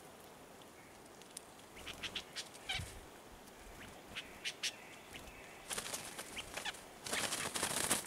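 Scratchy rustling and handling noise as a freshly netted bird is pushed into a mesh cloth bag. Short scattered rustles run through the middle and grow louder and denser near the end.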